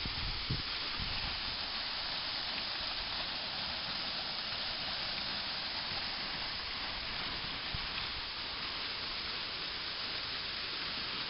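Waterfall pouring down a rock face: a steady, even rushing hiss, with a couple of low bumps about half a second in.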